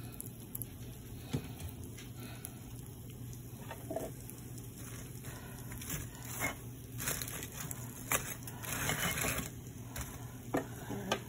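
Fried chicken tenders being set back into a cast-iron skillet: scattered soft knocks and scrapes of the pieces and the utensil against the pan, with a few longer scrapes past the middle. A low steady hum runs underneath.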